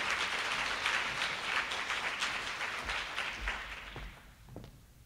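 Audience applauding, the clapping dying away about four seconds in, leaving a few faint knocks.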